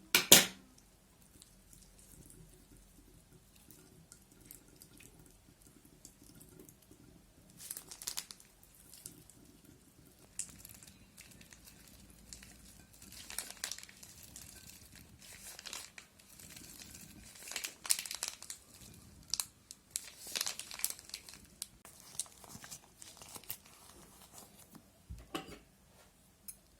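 Plastic piping bags crinkling and rustling as they are handled and squeezed, in irregular bursts. There is a sharp snap right at the start and a dull thump near the end.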